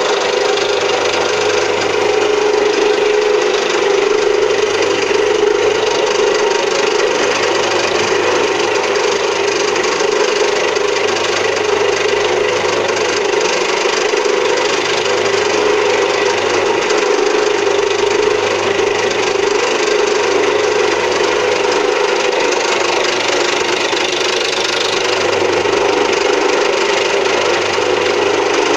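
Home-built milling machine running steadily, its cutter working the stock with a continuous cutting noise over a steady motor hum.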